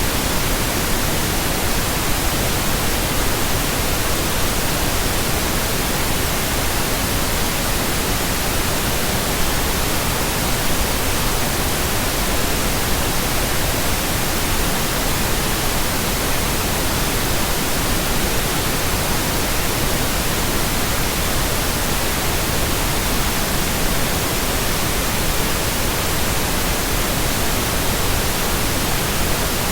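Steady, unchanging electronically generated pink noise: an even hiss with no tone, rhythm or break in it.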